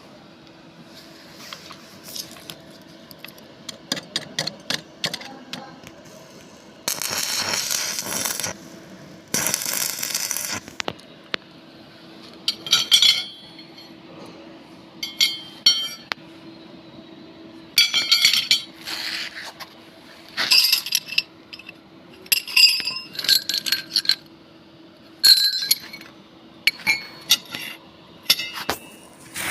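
Steel pieces clinking and ringing as they are knocked together and tapped, in a string of separate strikes. There are two brief bursts of scraping noise about seven and ten seconds in, over a steady hum.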